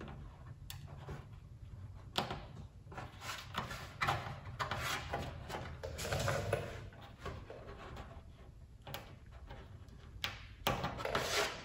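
Handling of small 3/32 aircraft rivets: scattered light clicks and taps as they are set into the holes of a thin metal flaperon skin, with short rattles as they are picked from a dish, the loudest about six seconds in and again near the end.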